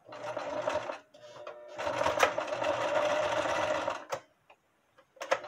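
Electric sewing machine sewing a straight stitch through layers of terry-cloth towel, in two runs: a short burst of about a second, then after a short pause a longer run of about two seconds that stops about four seconds in. A single click follows the stop, and the machine starts again at the very end.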